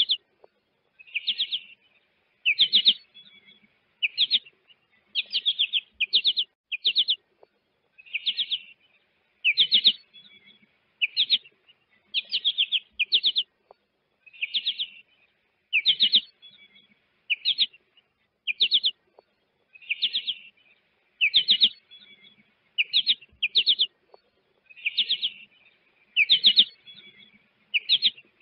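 A finch calling: short clusters of quick high chirps, each cluster a few rapid notes, repeated about once a second.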